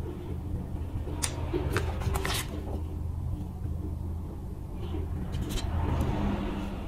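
Light clicks and small handling knocks from a plastic phone charger and USB cable being turned over in the hands, several near the start and a few more near the end, over a steady low hum.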